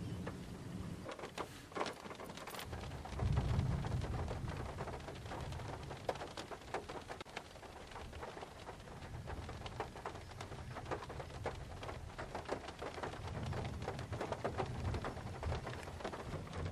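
Rain falling during a thunderstorm, with many close drop ticks, and low thunder rumbling that swells about three seconds in and again near the end.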